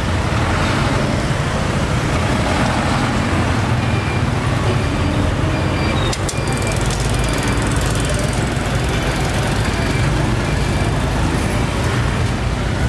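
Steady street traffic noise: the low rumble of motorbikes and other vehicles passing close by on the road.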